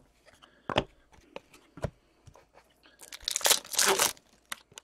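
Hockey card pack's foil wrapper being torn and crinkled, a dense crackle about three seconds in, after a few light ticks of cards being handled.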